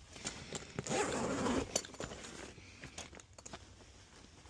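Handling noise as a tool is fetched: a brief rasping rustle about a second in, then a few faint clicks.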